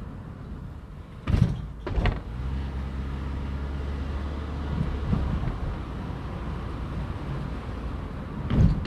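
Car driving along a town street: a steady engine drone and road noise. Two sharp thumps about half a second apart come a little over a second in, and two more come near the end.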